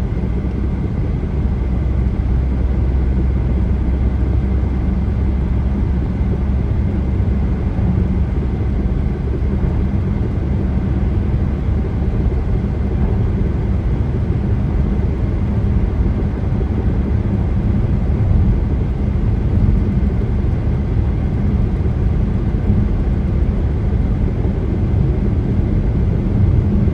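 Steady road noise of a moving car, heard from inside: a low drone of tyres and engine that holds even throughout.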